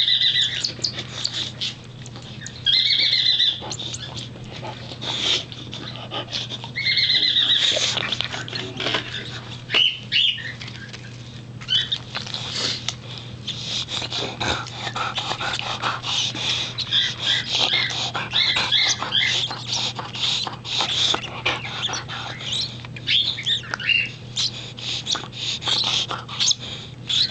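Baby cockatiel begging for food while being hand-fed: three calls of about a second each in the first half, then a long run of short, rapid chirps and clicks. A steady low hum runs underneath.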